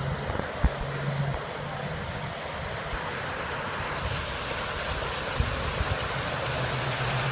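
Steady rush of water from cars pushing through a flooded street, over a low engine hum that fades after about a second and returns near the end. A single knock comes about half a second in.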